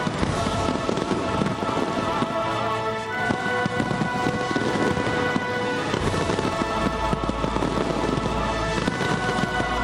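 Fireworks display crackling and popping in a dense, continuous stream, with music of long held notes playing loudly alongside. A deep low rumble joins in about six seconds in.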